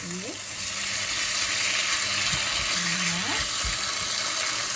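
Chicken and pineapple pieces in red curry sauce sizzling steadily in a nonstick wok over high heat. They are stirred with a plastic spatula, which knocks lightly against the pan a few times.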